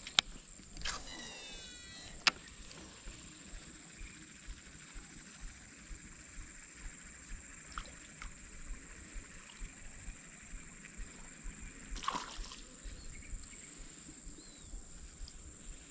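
Steady high-pitched insect drone. Two sharp clicks come in the first couple of seconds, and there is a brief rustling burst about twelve seconds in.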